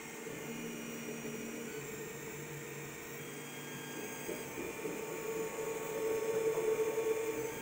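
LONGER LK1 3D printer running, its motors giving a steady whirring hum with several tones that shift in pitch, growing louder about six seconds in.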